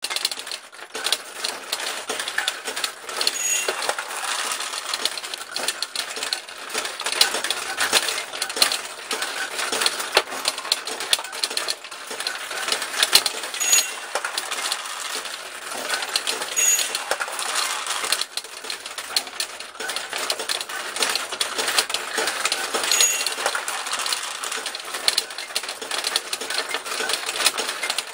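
Vintage 1974 Nishijin 'Switcher' recirculating pachinko machine in play: a steady, dense clatter of steel balls ricocheting off the playfield pins and rattling through the machine, with a few brief high rings.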